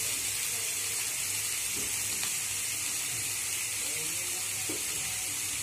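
A steady high hiss, with faint voices in the background.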